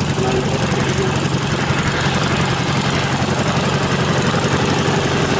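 Hummel Ultracruiser's small piston engine idling steadily with its propeller turning.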